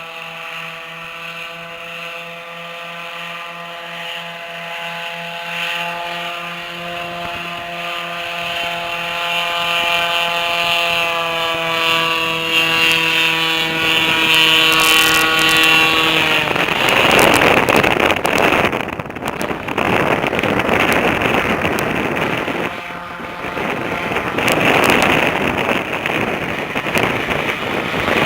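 Airboat engine and propeller droning at a steady pitch, growing louder. About seventeen seconds in, the drone gives way to a loud rushing noise with wind on the microphone.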